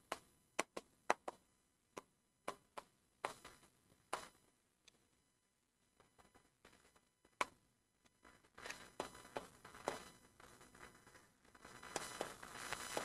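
Pen tapping and scraping on the screen of an interactive whiteboard as words are written: a run of sharp, separate taps, then from about eight seconds in a faint, more continuous scratching of writing strokes.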